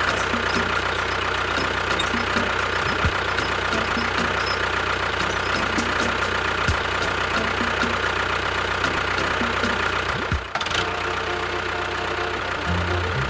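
An engine running steadily at idle with a knocking beat, its sound changing abruptly about ten and a half seconds in.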